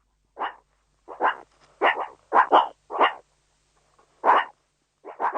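Dog barking: a run of short, sharp barks at uneven intervals, several close together and then a pause before a few more near the end.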